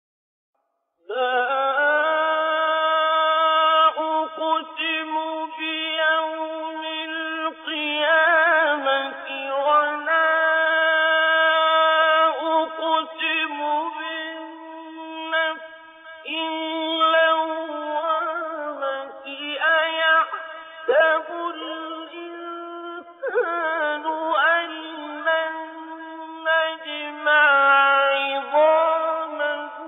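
A man's solo voice reciting the Quran in the melodic mujawwad style in maqam Saba, starting after about a second of silence. The recitation moves through long held notes with wavering ornamented turns, broken by short pauses for breath.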